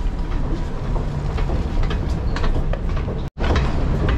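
Steady low rumble of a moving vehicle with scattered clicks and knocks. It cuts out abruptly for a split second about three seconds in, then carries on.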